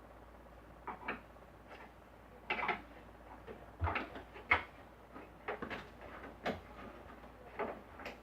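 Scattered clicks and knocks of plastic speaker-cabinet parts and hand tools being handled during disassembly, about a dozen short sharp sounds at irregular intervals, the loudest about four and a half seconds in.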